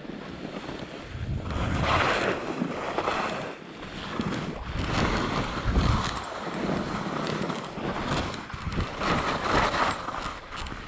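Wind rushing over the microphone of a moving camera, with the hiss of sliding over snow, rising and falling in uneven surges.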